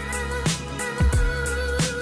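Background music with a steady drum beat and held melodic notes.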